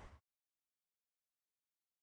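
Audio cuts off abruptly just after the start, leaving dead digital silence.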